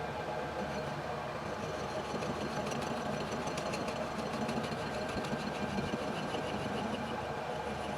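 Lathe running with a steady mechanical hum. Faint fast ticking comes in over a few seconds in the middle.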